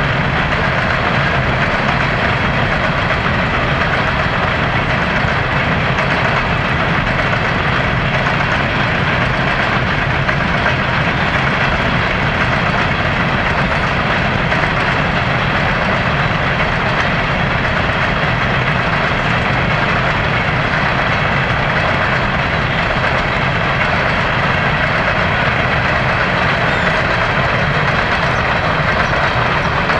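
Coal train's hopper cars rolling past on the rails, a steady rumble of steel wheels on track.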